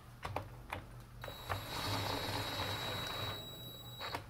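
Cordless drill driving a screw into a chainsaw's plastic housing, its motor running with a steady whine for nearly three seconds before stopping abruptly. A few light handling clicks come before it starts.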